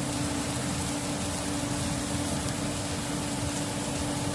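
Trumpet mushrooms sizzling steadily as they sear in a pan over high heat, with a steady hum underneath.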